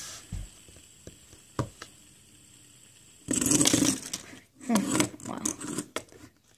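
Hands handling a plastic fidget spinner on a table close to the microphone: a few faint clicks, then about three seconds in a loud brushing rustle, followed by several shorter rustles and knocks as it is picked up. The spinner's own spin is barely audible.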